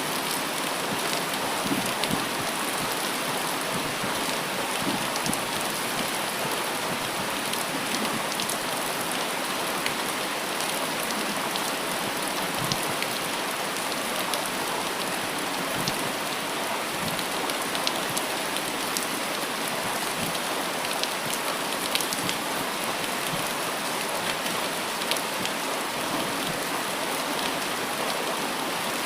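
Steady rain falling, a continuous hiss with scattered individual drops ticking sharply close by.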